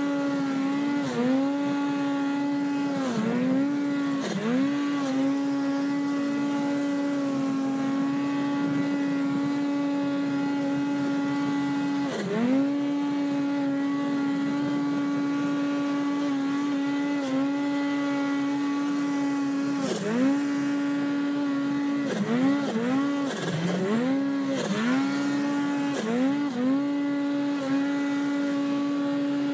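Snowmobile engine held at high, steady revs on a steep uphill climb. Revs dip briefly and pick straight back up as the throttle is eased and reapplied, a few times early on and several times in quick succession in the last third.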